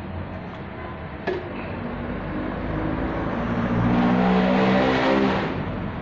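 A motor hums steadily, swelling louder for about two seconds past the middle and then dropping back. A single sharp click sounds about a second in.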